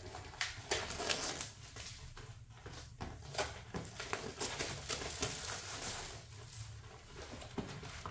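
Hands opening a cardboard box: an irregular run of rustling, scraping and tearing noises.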